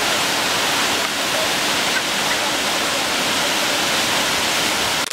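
A waterfall's steady rush of falling water, loud and even throughout.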